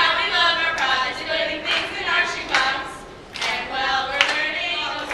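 A small group of girls singing together unaccompanied, their voices blending on sustained notes with short breaks between phrases.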